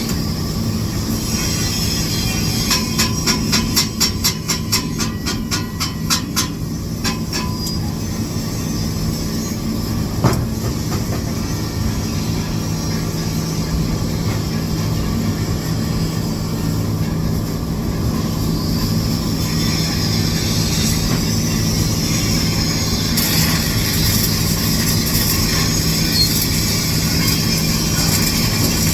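Stick welding arc crackling and hissing steadily over a low, even hum from the welding machine. A run of sharp clicks, about four a second, comes a few seconds in.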